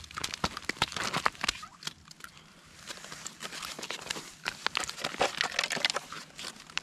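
Irregular crunching and crackling of snow and slushy ice under hands and knees at an ice-fishing hole while a freshly landed walleye and tip-up line are handled, easing off briefly about two seconds in.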